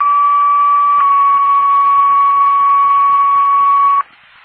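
Two-tone sequential fire-department paging tone heard through a scanner radio. A steady tone holds about a second, then steps to a slightly lower tone for about three seconds and cuts off sharply, over radio hiss. It is the dispatch alert that sets off firefighters' pagers ahead of the general-alarm call.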